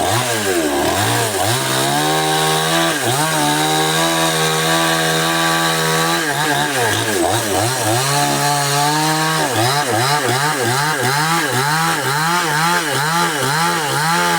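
Two-stroke chainsaw engine running at high revs, its pitch dipping and recovering. It holds steady for a few seconds in the middle, then rises and falls quickly, about twice a second, towards the end.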